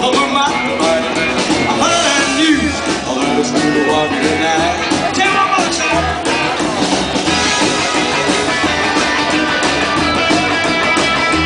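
Rockabilly band playing live: upright bass, acoustic guitar and electric guitar.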